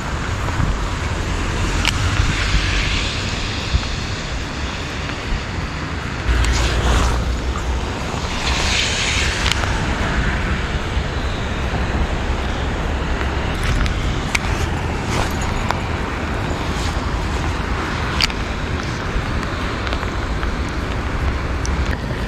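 Wind buffeting the microphone over a steady hiss of rain, with two brief rustling swishes and occasional sharp ticks.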